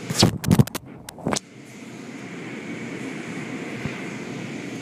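Automatic tunnel car wash heard from inside the car: a quick run of five or six loud slaps in the first second and a half, then a steady whooshing hum of the wash machinery and spray.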